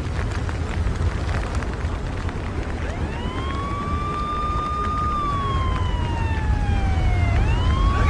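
Fire vehicle's siren winding up about three seconds in, holding a high wail, slowly sinking in pitch and then winding up again near the end, over a steady low rumble.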